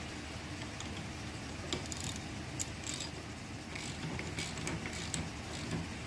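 Scattered light metallic clicks and clinks of a socket and ratchet being handled and fitted onto the steering-shaft nut, over a steady low hum.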